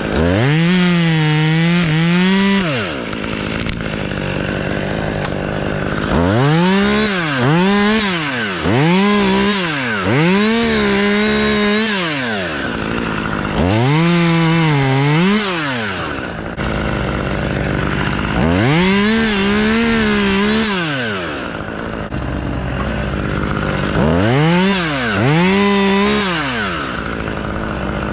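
Two-stroke chainsaw revved to full speed in about seven bursts of two to three seconds, dropping back to idle between them, as it cuts off a stub on a tree being taken down.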